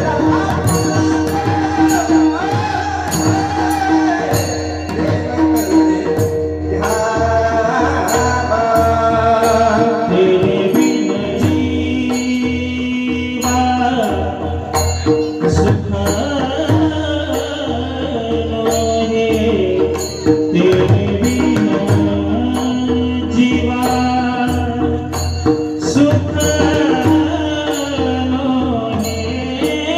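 Marathi Warkari kirtan singing: male voices sing a devotional melody over a steady held drone, with pakhavaj drum strokes and small hand cymbals keeping a regular beat.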